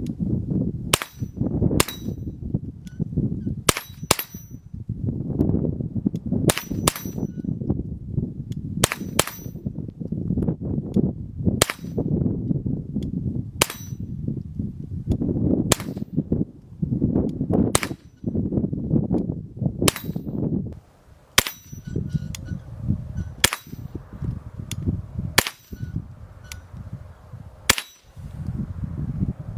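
.22 LR firearm shooting Remington Golden Bullet rounds: about twenty sharp cracks, one every second or two and some in quick pairs, over a steady low rumble.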